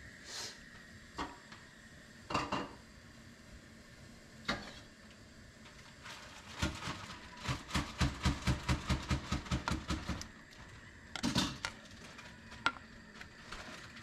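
Kitchenware knocking against an aluminium cooking pot as a plastic ladle and the pot are handled: a few separate knocks, then a quick run of taps about five a second for around three seconds, then a short cluster and a last click near the end.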